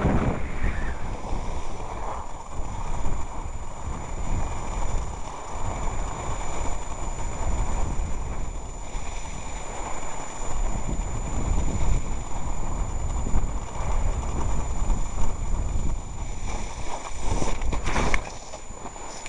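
Wind buffeting the camera microphone: a rough low rumble that rises and falls in gusts, over a faint steady high-pitched whine. A few short knocks come near the end.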